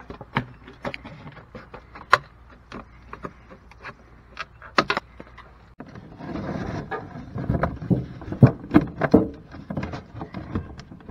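Handling noise: scattered clicks and knocks, then from about six seconds in denser rustling and a run of knocks as vinyl soffit panels are handled and the camera is moved.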